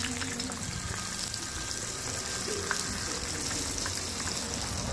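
Two porgy fish frying in a skillet of hot oil: a steady sizzle with scattered small pops.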